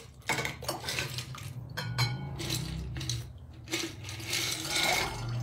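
Ice cubes poured from a glass jar into a glass bowl of cold water, clinking and clattering against the glass in a run of quick hits.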